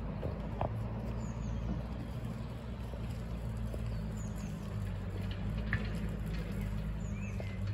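A steady low engine hum, with a small bird giving a short falling chirp about every three seconds.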